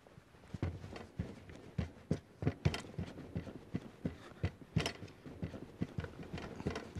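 Pasta dough being pressed and kneaded by hand on a floured worktop: a run of irregular soft thumps and knocks on the counter, a few a second.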